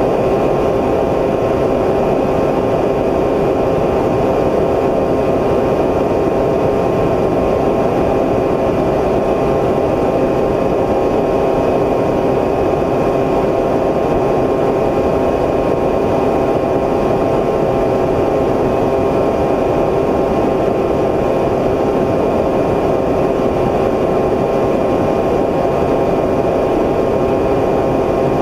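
Small multirotor drone's electric motors and propellers humming steadily at an even pitch, with no change in level.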